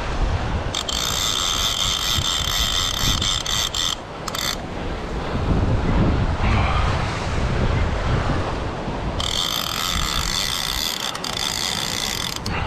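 Fishing reel ratchet buzzing in two spells of about three seconds each, with wind rumbling on the microphone throughout.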